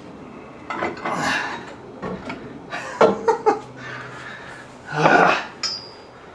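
A heavy Smittybilt winch knocking and scraping against the truck's steel front frame and winch carrier as it is test-fitted and lowered, with a few short sharp knocks around the middle and a louder rustling clatter about five seconds in, along with the man's effortful breathing.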